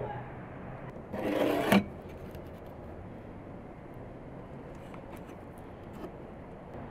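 A brief scrape lasting under a second, ending in a sharp knock, over a steady background hiss.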